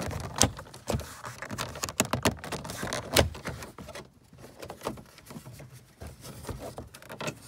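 Plastic inside door-handle bezel of a Chevy Silverado door panel being pushed up and popped out by hand: a quick run of sharp plastic clicks and scrapes for about three seconds, then quieter handling with a few scattered clicks.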